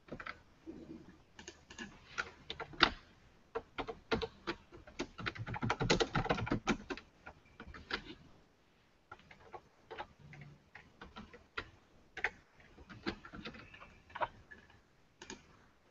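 Typing on a computer keyboard: irregular runs of key clicks, with a dense burst of fast typing about five to seven seconds in.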